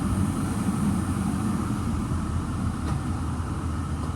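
Ford E-450 bus engine idling, a steady low rumble heard from inside the bus body.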